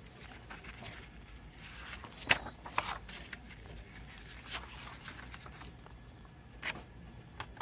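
A glossy paper CD booklet being unfolded and handled: soft paper rustling with a few short, sharp snaps, the loudest a little over two seconds in.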